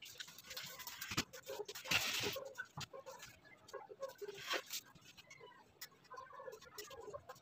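Light knocks, creaks and short scrapes of a wooden crib frame and its slatted side panel being handled and shifted.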